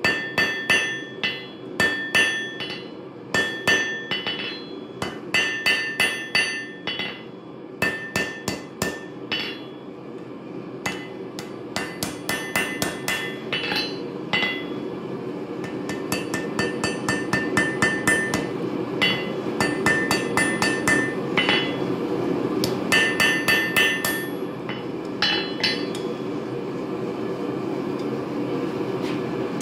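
Hand hammer forging a hot railroad spike on a steel anvil in quick runs of blows, each strike leaving a bright metallic ring. The blows thin out and stop near the end, leaving a steady low hum underneath.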